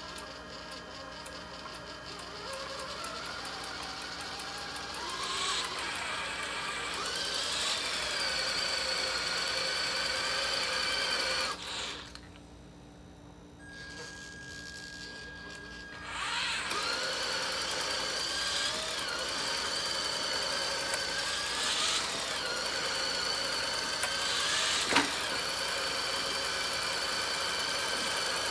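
Two radio-controlled trucks' brushed 650-size electric motors and geartrains straining against each other in a tug-of-war, a whine with several pitches that rises and dips as the throttle changes. About twelve seconds in the whine drops to a faint steady tone for a few seconds before the pull resumes, and a sharp snap comes near twenty-five seconds.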